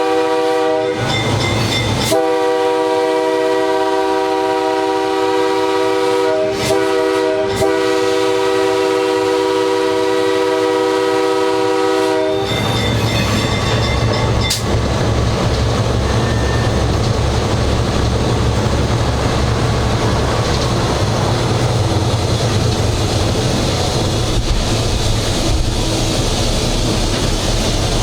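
Nathan K3H three-chime air horn on a GE 80-ton switcher sounding a long, steady chord for a grade crossing. It breaks briefly a few times and cuts off about twelve seconds in, leaving the locomotive's low, rhythmic engine rumble in the cab.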